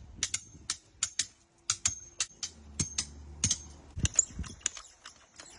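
Hammer tapping nails while framing wooden concrete forms: an irregular quick run of sharp taps, about three to four a second, with a faint metallic ring and a couple of heavier knocks about four seconds in.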